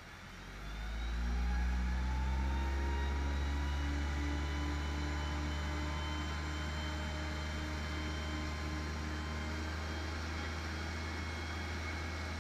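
Fire engine's engine throttled up to drive its pump while filling a tanker from a hydrant. It rises in pitch and loudness over the first couple of seconds, then holds a steady, loud drone at high revs.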